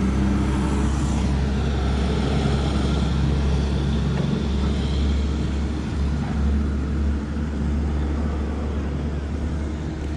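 Honda Magna VF750's V4 engine running steadily at low revs, a low even hum over a haze of road and wind noise.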